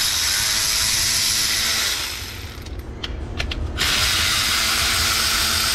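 Cordless electric ratchet spinning out the studs that hold the coil pack bracket: a steady motor-and-gear whir that stops for about a second and a half in the middle, with a few clicks in the gap, then runs again.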